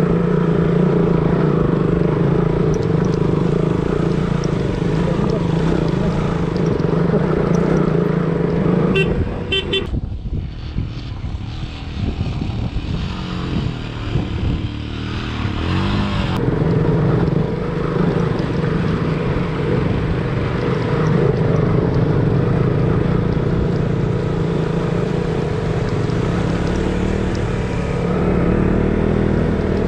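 Motorcycle engine running while riding, heard with wind noise. The engine note falls away for several seconds about a third of the way in, then picks up again.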